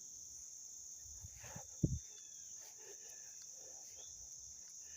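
Steady, high-pitched chorus of crickets and other insects, with one sharp thump just under two seconds in and a few faint chirps.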